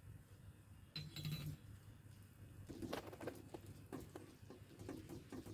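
A small steel cup clinks once against a kadai about a second in as cardamom powder is tipped in, then a spatula stirs and scrapes through bubbling carrot halwa syrup, with a run of small clicks and scrapes.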